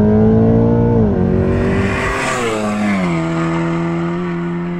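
Tuned Volkswagen Golf 7 R's 2.0 TSI four-cylinder at full throttle on an acceleration run, its note climbing and dropping with quick upshifts. The car passes at speed about two seconds in with a rush of tyre and wind noise, then holds a lower, steady note as it pulls away.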